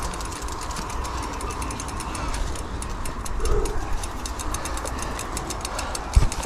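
Bicycle being ridden on a muddy off-road trail: rapid, fairly even ticking and rattling from the bike, over a low wind rumble on the microphone. There is a single bump near the end.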